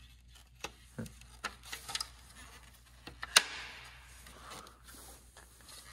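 Plastic and carbon fibre parts of a BMW M2 CS kidney grille clicking and knocking as the grille inserts are pushed and snapped into the surround by hand. There are a few light clicks in the first two seconds and one loud sharp snap about three and a half seconds in.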